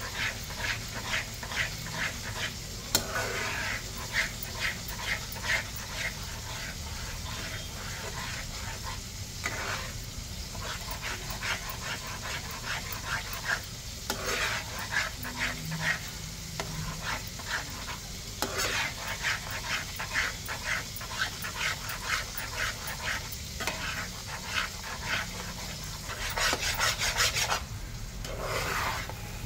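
A spatula stirring and scraping semolina halwa in a nonstick pan: quick repeated scrapes over a steady sizzle from the cooking mix, louder near the end as the halwa thickens.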